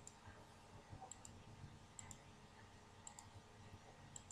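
Near silence broken by faint, sharp clicks, mostly in close pairs, about once a second.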